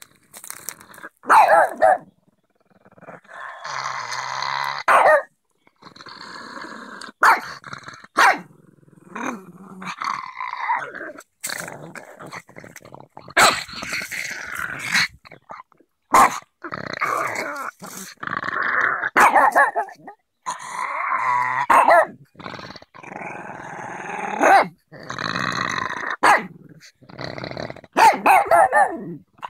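Pug growling and barking in repeated bouts, growling in play as it tugs at a young tree's branches. Long rough growls of a second or two alternate with short barks.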